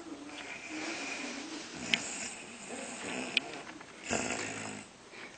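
A woman snoring in deep sleep, rough snores on the breath with a louder one about four seconds in. Two sharp clicks stand out, about two seconds in and again a second and a half later.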